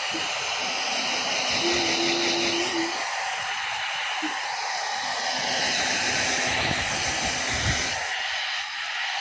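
Handheld electric hair dryer running, a steady rush of blown air while drying hair; its sound dips and thins as it is moved about.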